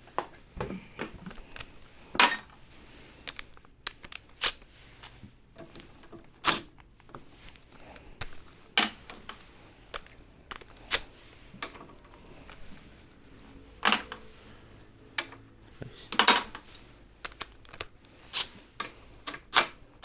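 Metal hand tools being handled: scattered sharp clicks and clinks, about a dozen at irregular intervals, the loudest about two seconds in.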